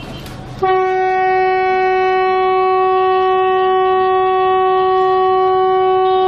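Narrow-gauge train's locomotive horn giving one long, loud, steady blast at a single pitch, starting about half a second in, as the train passes a level crossing.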